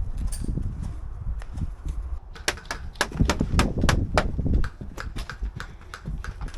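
Airsoft guns firing: a run of sharp, rapid snaps starting about two and a half seconds in, over low rumbling noise.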